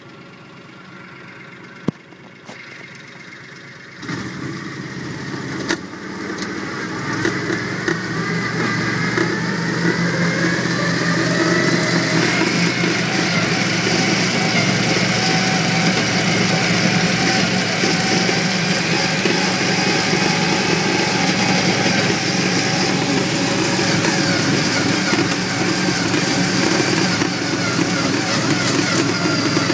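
Argo six-wheeled amphibious ATV's engine pulling away. It is quiet for the first few seconds, then picks up about four seconds in, its pitch rising for several seconds before it settles into a steady run.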